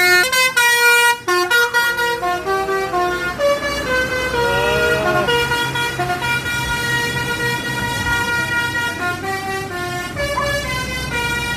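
Bus 'telolet' musical horns playing a quick run of stepped notes, then a held multi-note chord, with a bus engine running underneath from about four seconds in.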